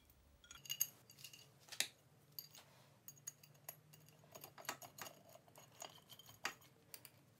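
Quiet, irregular light metallic clicks and clinks of a hex screwdriver turning a screw into an aluminium motor mounting plate on a metal lathe, the tool and plate knocking lightly against the metal.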